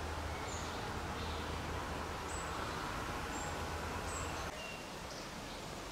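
Woodland ambience: faint, brief, high bird chirps every second or so over a steady low rumble, which drops in level about four and a half seconds in.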